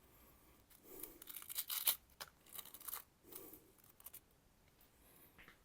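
A freshly stropped knife edge slicing through paper: several short, faint cutting and rustling strokes, testing the sharpness of the edge.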